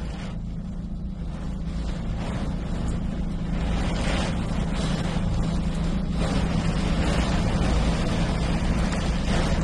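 A stopped truck's engine idles with a steady low hum inside the cab, under gusts of storm wind and rain buffeting the cab that grow louder.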